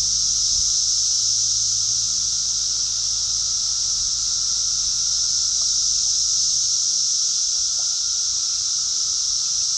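Steady high-pitched drone of a summer insect chorus, unbroken throughout.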